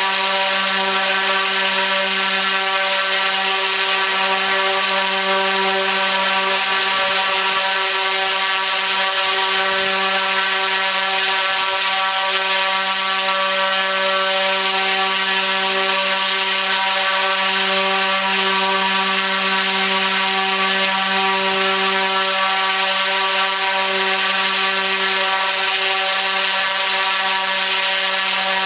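T-Motor U13 (100kV) brushless motor driving a 29-inch three-blade carbon-fibre propeller at full throttle on 12S, running at a steady, unchanging pitch: a constant propeller drone with the motor's hum over a rushing hiss.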